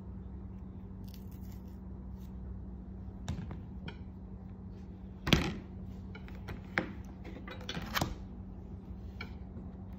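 Handling noises as a banana is peeled by hand and a spoon is taken from a glass bowl: a few short sharp knocks and clicks, the loudest about halfway through, over a steady low hum.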